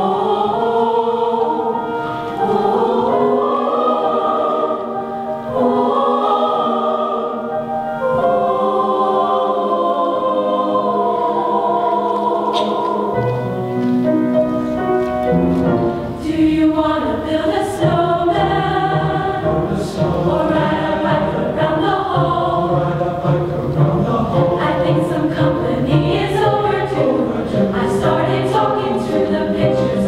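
Mixed high-school choir singing: women's voices alone at first, then men's lower voices join a little before halfway and the full choir sings on together.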